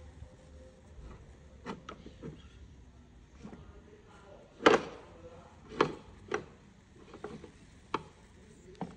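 Scattered knocks and clinks of a metal window regulator rail being handled over a toolbox of steel sockets and spanners, the loudest knock about halfway through.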